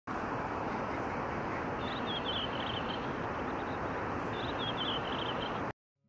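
Steady outdoor rushing noise, with a small bird singing a short twittering phrase twice over it; the sound cuts off suddenly near the end.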